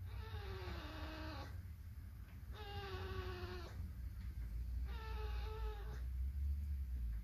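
Sleeping roe deer fawn snoring: three drawn-out, high, squeaky snores about a second long each, one with every breath, each sagging a little in pitch, over a steady low rumble.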